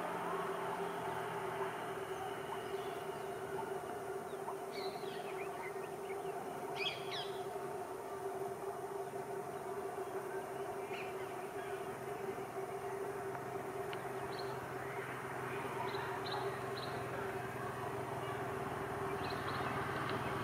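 Steady, distant hum of an approaching WAP-7 electric locomotive and its train, slowly growing a little louder near the end. Birds chirp briefly several times.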